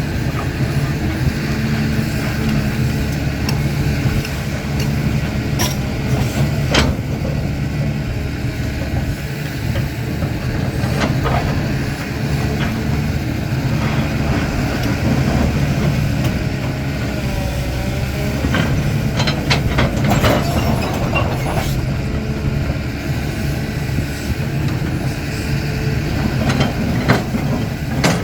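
CAT 320D excavator's diesel engine running steadily while it works, with scattered sharp metallic clanks and knocks, clustered around a quarter of the way in, about two-thirds of the way in, and near the end.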